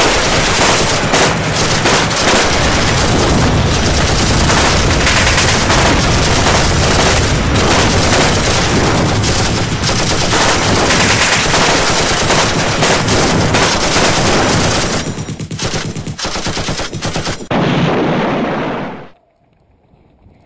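Loud, dense machine-gun fire mixed with single gunshots, a continuous battle soundtrack. It thins out about fifteen seconds in, flares up in one last burst, then stops abruptly about a second before the end.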